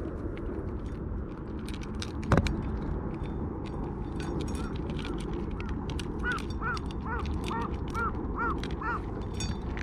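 Two cats eating from a metal dish: wet crunching and chewing, with small clicks of teeth and tongue against the tin and one louder clink about two seconds in. Toward the end, an animal gives a quick series of about seven short calls, about two a second.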